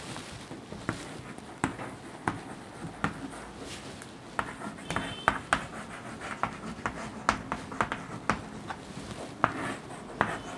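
Chalk writing on a chalkboard: an irregular run of short taps and scratches as the letters are drawn.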